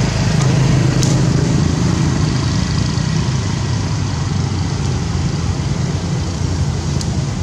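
Steady low rumble of background noise, with a few faint ticks around a second in.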